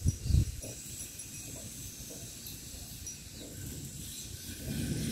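Outdoor ambience: low rumbling thumps on the microphone, strongest in the first half second, under a steady high-pitched hiss.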